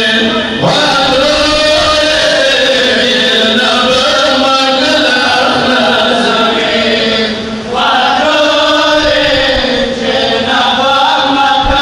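A Pashto noha, a Shia lament for Imam Hussain, chanted by male reciters in long, held, wavering notes. The voice drops away briefly about seven and a half seconds in, then comes back.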